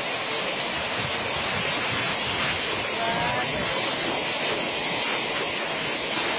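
Muddy water rushing steadily down a ditch.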